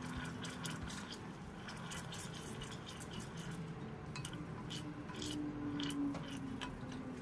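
Wooden spoon stirring sugar syrup in a stainless steel saucepan, giving scattered light clicks and taps against the pot, over soft background music with held notes.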